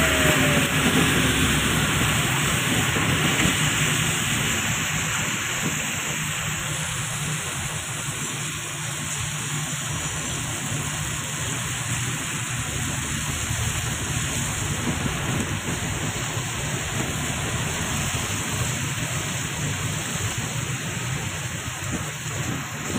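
Steady road noise of a moving vehicle heard from inside it, an even hiss that eases off a little over the first several seconds.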